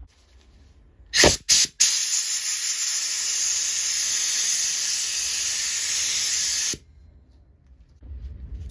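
Pressurised spray hissing from a nozzle aimed into a freshly tapped bolt hole, clearing out the tap shavings. Two short blasts come about a second in, then a steady hiss runs for about five seconds and cuts off suddenly.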